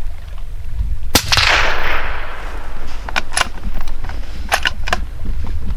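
A single rifle shot about a second in, its report rolling away for a second or so afterwards. Several sharp clicks and knocks follow near the middle and end, over steady wind rumble on the microphone.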